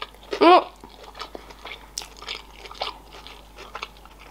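A person chewing a mouthful of sushi roll close to the microphone, with small wet mouth clicks and smacks. There is one short voiced sound about half a second in.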